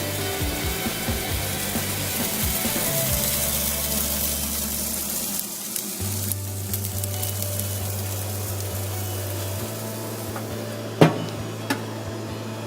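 Food sizzling on a barbecue grill, the hiss thinning out about halfway through, over background music with a low bass line. A sharp click sounds near the end.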